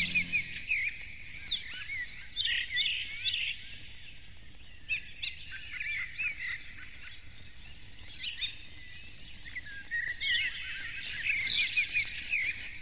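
Songbirds singing and chirping in overlapping short phrases, with quick rattling trills about seven seconds in and again near the end.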